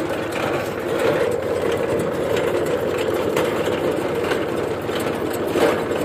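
Tractor engine running steadily while pulling a potato harvester, with a steady mechanical rattle from the machinery.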